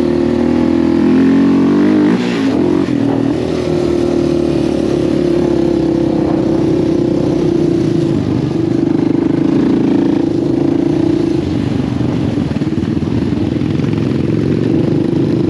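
Quad bike (ATV) engine running while riding, its note rising and falling a little with the throttle. It dips briefly about two seconds in, then holds fairly steady.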